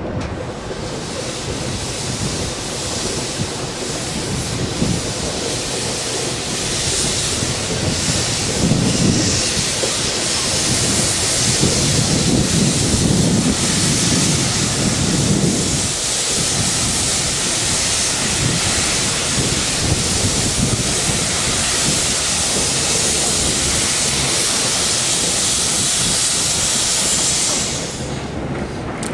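Small saddle-tank steam locomotive moving slowly off, with a loud, steady hiss of escaping steam and a low rumble underneath that is strongest in the middle. The hiss cuts off suddenly near the end.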